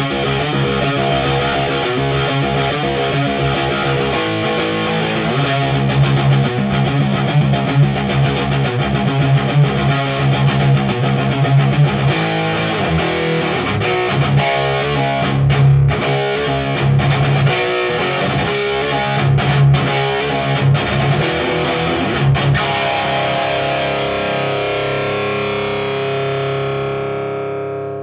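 Distorted electric guitar, an Ibanez RGA42FM with a humbucker, played through a Randall RD20 tube amp on its crunch channel: held chords, then a choppier riff with short sharp stops. It ends on a chord left ringing and fading, cut off just at the end.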